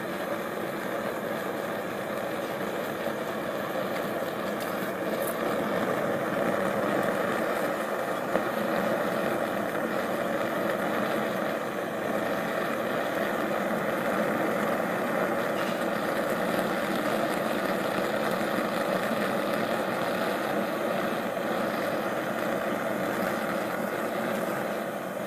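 Homemade gas forge burner, a 3/4-inch pipe burner tube firing into the forge, running with a steady rushing noise.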